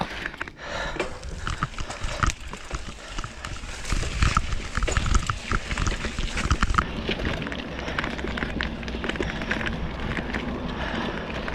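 Specialized Rockhopper mountain bike riding along a dirt singletrack: tyres rolling over dirt and roots, with frequent clicks and knocks as the bike rattles over bumps and a low rumble, strongest about four to six seconds in.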